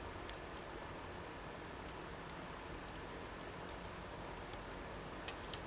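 A few faint, sharp clicks of small laptop parts and screws being handled, over a steady low hiss.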